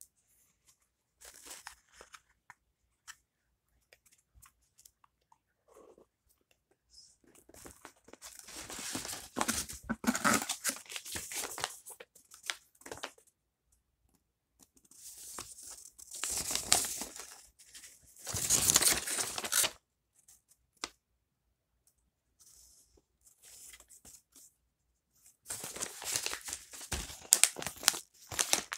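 Mail packaging being opened by hand: a paper sheet rustling and a padded mailer tearing and crinkling in several bursts with short pauses between them.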